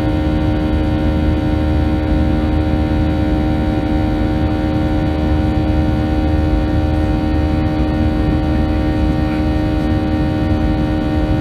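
Cabin noise of a Boeing 737-700 climbing after takeoff, heard from a window seat near its CFM56-7B turbofan: a steady drone with several steady tones over a low rumble, unchanging in loudness.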